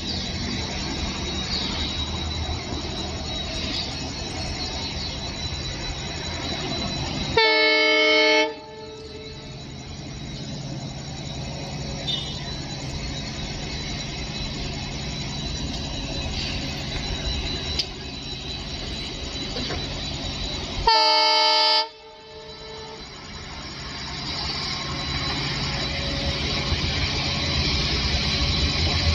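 Indian Railways diesel locomotive horn sounding two chord blasts of about a second each, roughly thirteen seconds apart, over the steady rumble of a diesel train that grows louder toward the end as the train approaches.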